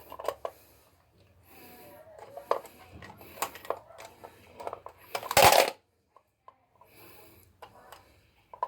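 Multimeter test probes clicking and scraping as they are handled and pushed into the slots of a convenience outlet for a voltage check, with a louder scrape about five seconds in.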